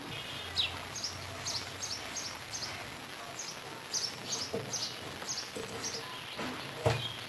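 Metal ladle stirring milk in an aluminium pot, with one sharp knock against the pot near the end. Over it come about a dozen short, high, falling chirps, two or three a second.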